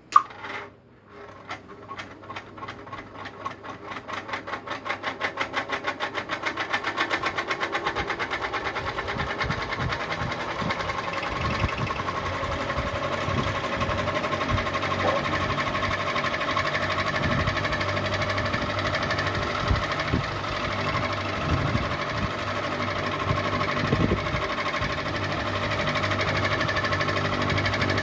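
Ceiling fan switched on with a click, then a rhythmic knocking once per turn that speeds up as the blades spin up, merging into a steady, loud mechanical running noise with a steady tone over it.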